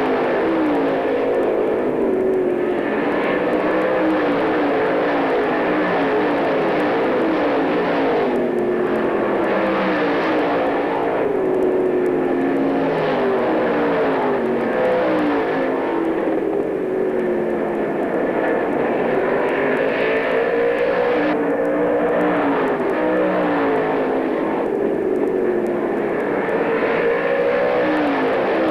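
Dirt-track race cars running at speed as the field laps the track. Several engine notes overlap without a break, each rising and falling in pitch as the cars pass.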